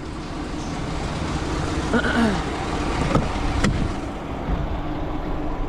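A vehicle engine idling steadily, with two sharp clicks a little past the middle.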